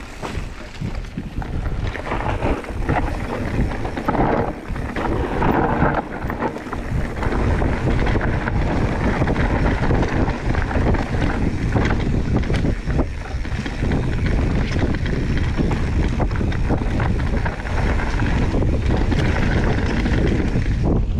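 Wind buffeting an action camera's microphone on a fast mountain bike descent, building over the first couple of seconds. Under it are the rumble of tyres on a dirt trail and a constant clatter of the bike over bumps and roots.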